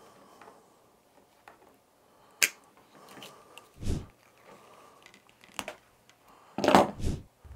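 Wire strippers cutting and stripping 22-gauge solid hookup wire: a few separate sharp clicks and snips, with a louder burst of handling rustle and bumps near the end.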